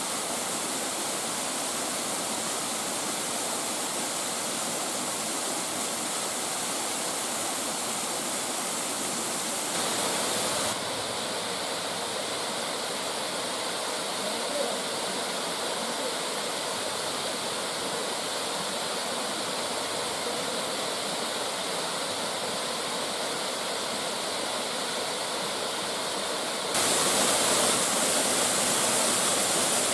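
Waterfall, a steady rush of falling water. The sound changes abruptly about ten seconds in, and gets louder near the end.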